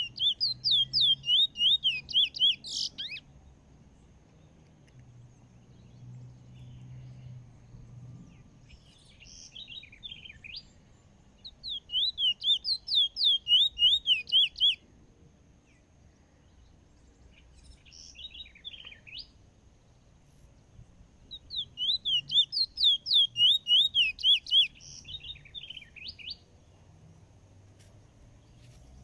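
Trinidad bullfinch (chestnut-bellied seed finch) singing three phrases of quick, repeated sweeping notes, about four a second. Each phrase lasts about three seconds and they come roughly ten seconds apart.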